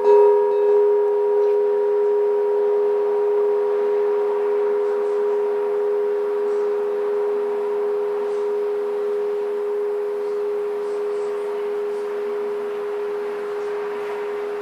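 Hanging metal bell struck once with a mallet, then ringing on in a long, slowly fading hum of two low tones close together and a fainter higher one, pulsing gently as it fades.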